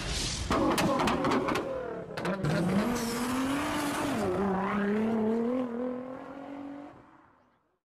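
Car engine revving and held at a wavering pitch in a burnout sound effect, after a quick run of sharp cracks in the first two seconds. It fades out about seven seconds in.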